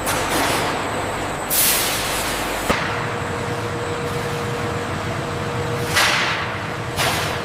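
Production-line machinery running steadily, with four short hisses of released compressed air. A sharp click comes near three seconds in, and a steady hum tone sets in after it.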